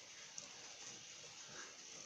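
Near silence: faint steady hiss with a single soft click about half a second in.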